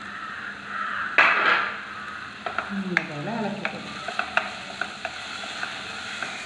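Sliced onions with crushed ginger, garlic and green chillies sizzling in oil in a non-stick pan while a plastic spatula stirs them, with a loud scrape about a second in and then a run of light clicks and taps of the spatula on the pan.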